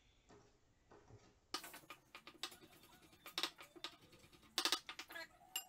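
Chef's knife dicing raw prawns on a wooden chopping board: irregular sharp knocks of the blade against the wood, starting about a second and a half in.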